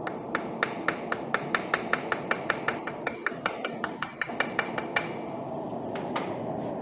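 Blacksmith's hammer striking steel on an anvil in a fast, even run of about five ringing blows a second for some five seconds, then two lighter taps near the end, over a steady rushing noise.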